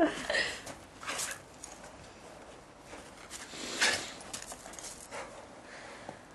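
Feet and a dog's paws crunching on snow: a few short, scattered crunches, the loudest at the start and about four seconds in as the dog jumps up for a snowball.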